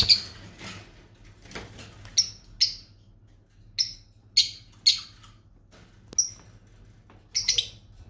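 Lovebirds giving short, shrill chirping calls, about ten over several seconds, some in quick pairs and a quick cluster near the end. A loud sudden sound opens it.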